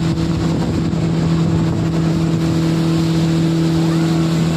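Motorboat engine running at a steady speed, a constant hum with rushing water and wind noise underneath.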